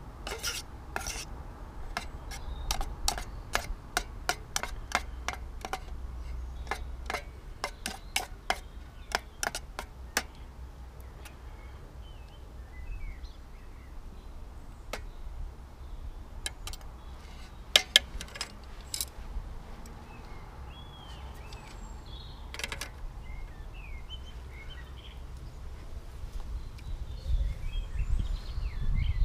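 A spoon stirring baked beans and sausages in a metal camping saucepan, clinking and scraping against the pan in quick, irregular strokes for about ten seconds, then only a few scattered clinks.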